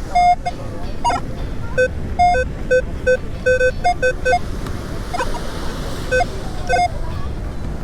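Metal detector beeping: short tones at two alternating pitches, one low and one a little higher, coming in irregular clusters as the coil passes over targets in the sand. Steady wind and surf noise runs underneath.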